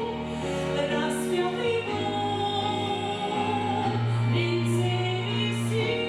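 Slow, tender music from the close of a Christian song, with held chords that change every second or two and no words sung.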